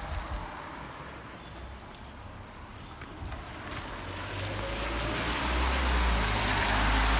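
Heavy rain on a flooded road while a car drives through the deep water. The hiss of tyres in the water and the low engine rumble grow louder from about halfway and stay loud.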